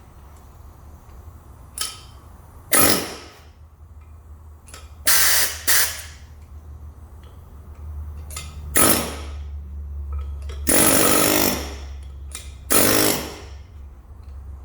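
Power tool, most likely an impact wrench, run in about six short bursts with pauses between, undoing the bolts of a rubber driveshaft coupler.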